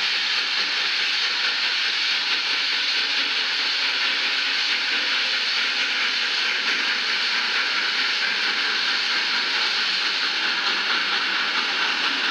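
Steady hiss of steam from Texas State Railroad 2-8-0 steam locomotive No. 300, blowing from its open cylinder cocks as it works up a grade.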